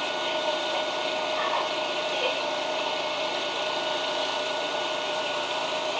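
Steady machinery noise inside the cab of a KiHa 54 diesel railcar: an even hum with a thin, high, steady whine.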